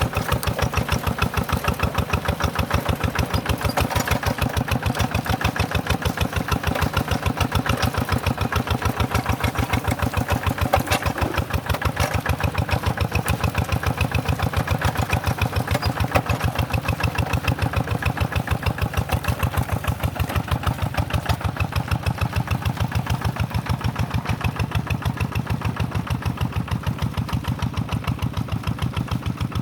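Tractor diesel engine running steadily with an even, rapid chugging.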